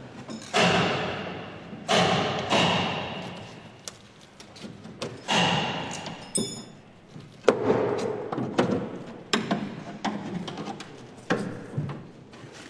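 A series of heavy knocks at irregular intervals, a second or two apart, each ringing on and dying away slowly.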